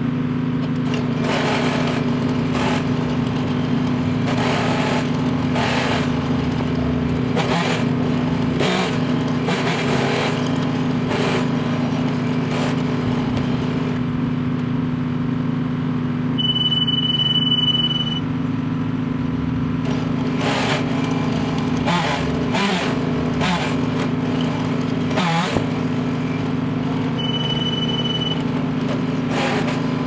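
Engine running steadily, with frequent short rushes of noise over it and a high tone that sounds briefly twice.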